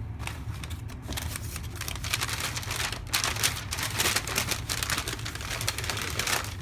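Paper wrapping being crinkled and torn as a wrapped item is unwrapped by hand, in irregular rustling bursts that grow busier after the first second or two.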